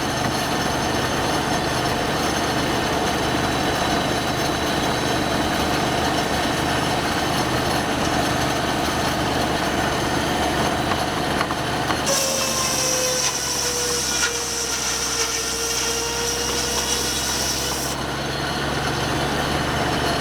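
Sawmill machinery running steadily. From about twelve seconds in, a higher hiss comes in for about six seconds, with a tone that sags slightly, as a saw cuts into wood under load.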